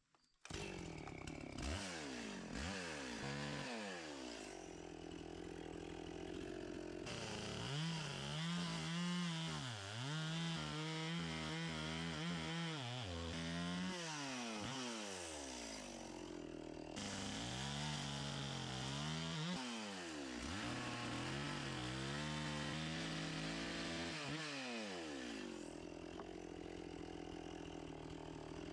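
Gasoline chainsaw cutting into a wooden log to rough out a carving, the engine revving up under the cut and easing off again every few seconds.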